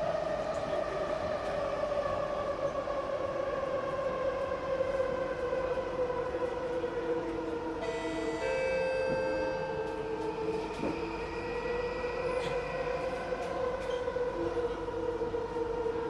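Inside a Singapore MRT train: the traction motors' whine, several tones together, slowly falls in pitch over the steady rumble of the wheels on the track as the train slows for a station.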